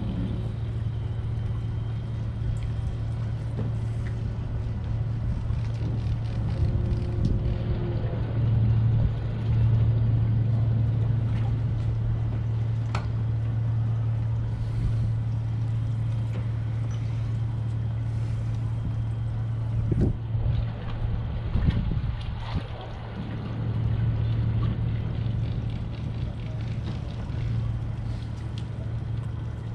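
Boat engine running with a steady low hum that swells and eases a little, with a few sharp knocks about two-thirds of the way through.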